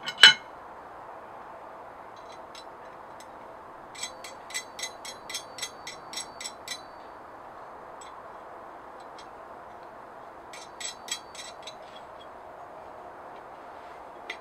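Hand-forged metal clamp being handled and adjusted: one sharp metal clink just after the start, then a quick run of light metallic clicks about four seconds in and another short cluster near eleven seconds.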